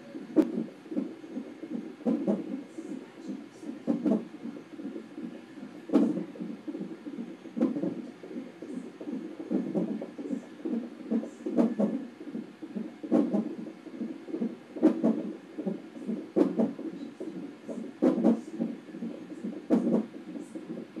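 A baby hiccuping over and over, one short sharp hiccup about every one and a half to two seconds, roughly a dozen in all, over a steady low rumble.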